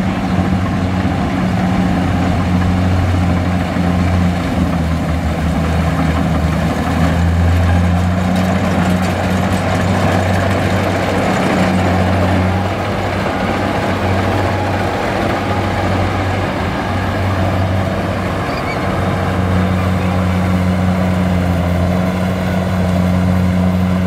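Rice combine harvester working in the field: its diesel engine runs steadily under load, with the rattle and whirr of the cutting and threshing machinery over it. The engine drone dips briefly a few times but never stops.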